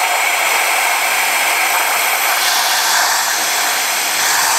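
Compressed air at 50 PSI blasting from a blow-gun nozzle into a small 3D-printed air turbine, a loud steady hiss with faint high steady tones running through it. The turbine is driving a 6-volt motor as a generator.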